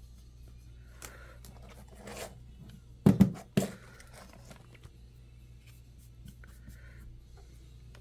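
Cloth rubbing and scraping on a laptop heatsink as old thermal paste is wiped off with isopropyl alcohol. There are three loud handling knocks close together a little after three seconds in.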